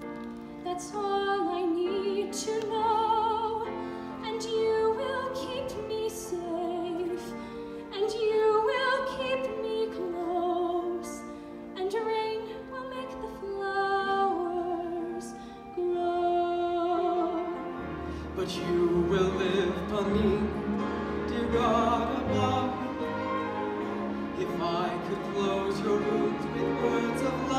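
Operatic-style singing with wide vibrato over a live orchestra with strings. About 18 seconds in, the orchestra swells fuller and deeper while the singing goes on.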